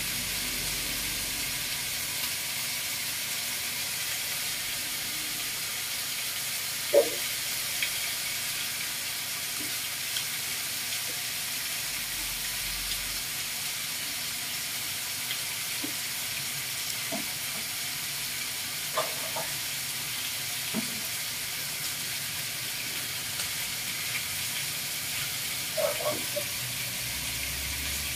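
Fatty pork pieces sizzling in hot oil in a wok as they are browned, a steady hiss with a few brief sharper sounds, the loudest about seven seconds in.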